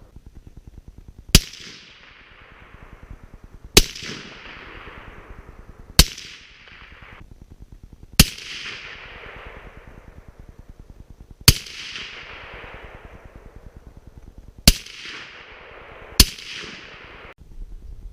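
Seven suppressed rifle shots from a .300 Blackout AR with a 30-calibre AAC suppressor, firing Hornady Black 208-grain A-MAX rounds. Each shot is a sharp crack followed by a fading echo, spaced irregularly a second and a half to three seconds apart.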